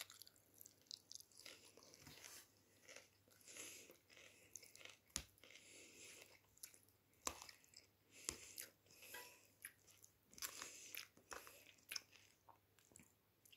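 Faint chewing of a mouthful of Caesar salad lettuce: irregular soft crunches and wet mouth clicks.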